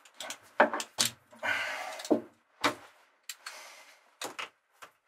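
Hands and a screwdriver working on a hose fitting at a bulkhead-mounted pump: a string of sharp clicks and knocks, with two short scraping sounds in the middle.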